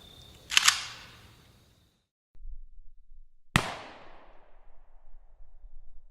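AK-105 rifle in 5.45×39mm fired with no muzzle device: a sharp, loud report about half a second in with a second crack right on its heels, then after a short gap another single loud report about three and a half seconds in with a long echo fading away.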